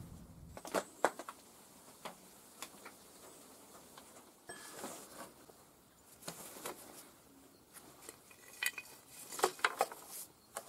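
Rusty steel excavator parts being handled and turned over by hand, giving scattered light metallic clinks and knocks, with a quick cluster of them near the end.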